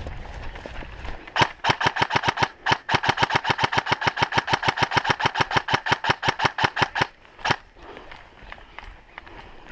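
Airsoft electric gun firing on full-auto at about nine shots a second: a short burst, a brief break, a long burst of several seconds, then a single shot.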